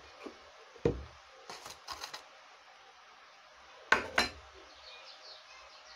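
Eggshell halves and dishes handled on a tabletop: light clicks about a second in and around two seconds, then a louder pair of knocks near four seconds in as a bowl is set down on the table.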